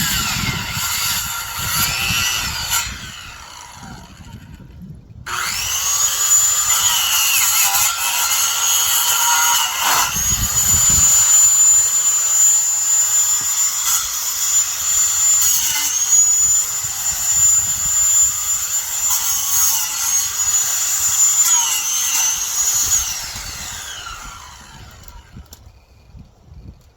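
Electric power saw cutting brush and branches. Its motor winds up about five seconds in and runs with a high steady whine, dipping briefly under load now and then, then winds down near the end. A shorter run stops about three seconds in.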